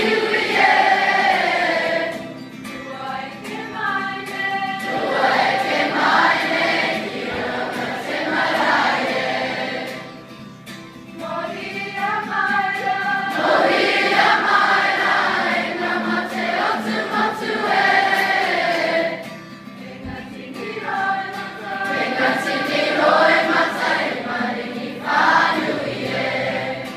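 An intermediate-school choir singing a leaving song with musical backing, in long sung phrases with a few short dips between them.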